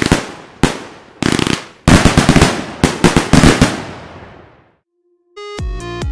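Fireworks going off in four rapid volleys of crackling bangs, the last and longest lasting about two seconds, their echo dying away. Electronic music begins near the end.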